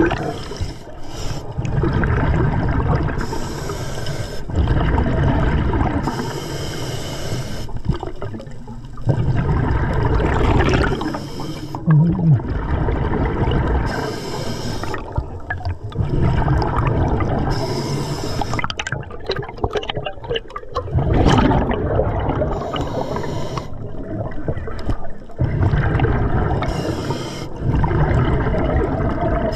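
Scuba diver breathing underwater through an Atomic regulator: a hiss on each inhale from the second stage, then a low bubbling rush of exhaust bubbles, repeating every three to four seconds.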